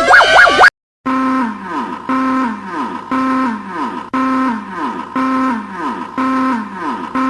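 Emergency alert alarm tones: a fast warbling siren cuts off under a second in, and after a short gap a low horn-like electronic tone sounds about once a second, each note dropping in pitch at its end, seven times over.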